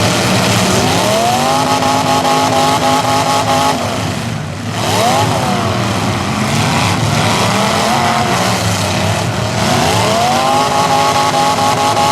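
Demolition derby car engine revving hard: the pitch climbs and holds, eases off about four seconds in, then climbs and holds again in repeated pushes.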